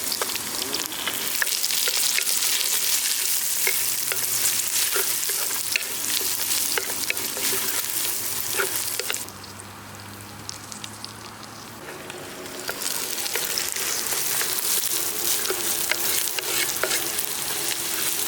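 Garlic frying in hot oil with a tempering of mustard seeds, onion, chillies and curry leaves, sizzling steadily while a spoon stirs and scrapes the clay pot with scattered taps. The sizzle drops back for a few seconds about halfway through, then picks up again.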